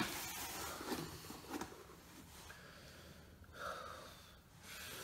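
A man's faint breathing, with a soft breathy exhale about three and a half seconds in, and a couple of light knocks from a cardboard box held in his arms in the first two seconds.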